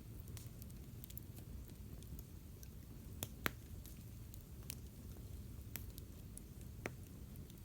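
Wood campfire crackling: irregular sharp pops and snaps from the burning wood, a couple of louder ones about three seconds in, over a low steady rumble.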